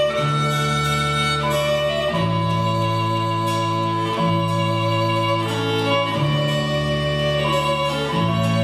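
Ceilidh band playing a tune led by fiddle, over low held notes that change about every two seconds.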